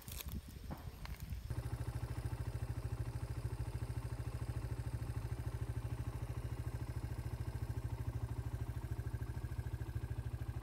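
Motorcycle engine idling steadily with an even, rapid pulse. It starts abruptly about a second and a half in, after a few light clicks.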